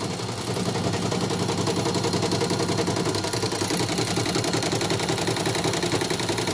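CNY portable computerized embroidery machine running, its needle bar stitching in a fast, even rattle of repeated strokes.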